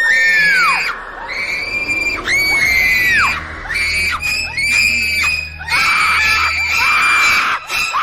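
A series of shrill screams, one after another, each rising and then falling in pitch, the last held for about two seconds, over a low rumble: a horror sound effect.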